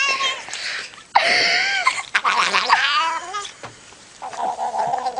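Domestic cat yowling: three loud, drawn-out calls that slide up and down in pitch. About four seconds in, a steadier buzzy sound takes over.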